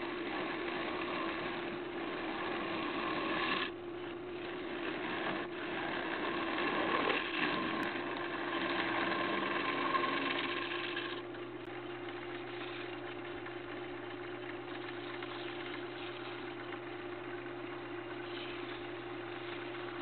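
Wood lathe running with a steady hum while a gouge cuts into a spinning apple wood and resin bowl, throwing shavings. About eleven seconds in the cutting noise stops suddenly, leaving only the lathe's steady hum.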